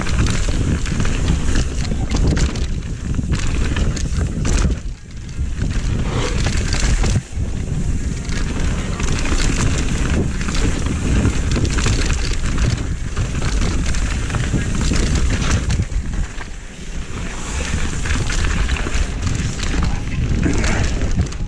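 Mountain bike riding fast down a dirt forest trail: steady wind rush on the camera's microphone, with the tyres crunching over dirt, rocks and roots and the bike knocking and rattling over the bumps.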